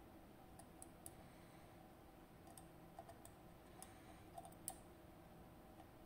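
Faint, scattered small metallic clicks: lock pins and a magnetic pickup tool tapping against a pin tray as the removed pins are laid out, about a dozen light ticks in all.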